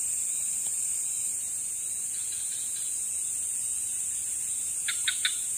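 Steady high-pitched chorus of night insects such as crickets, with three short sharp chirps close together near the end.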